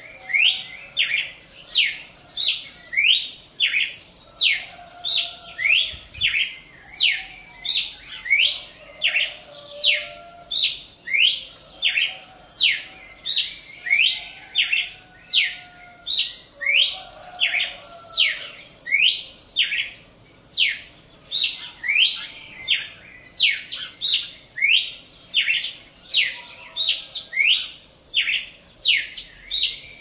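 Red-crested cardinal calling: a steady, repeated series of sharp chirps, each sliding quickly downward, about two a second.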